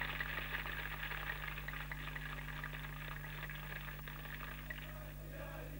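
A large crowd applauding, a dense patter of many hands clapping that thins out near the end, over a steady low electrical hum.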